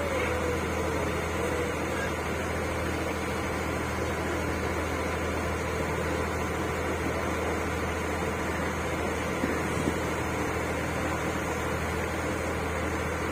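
Boat engine running steadily underway, a constant low hum.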